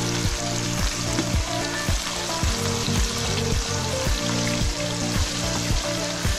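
Hot oil sizzling steadily in a frying pan, under background music with a steady beat of about two a second.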